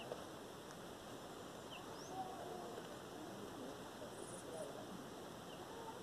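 Faint outdoor ambience over a steady hiss, with a few faint, short, high bird chirps scattered through.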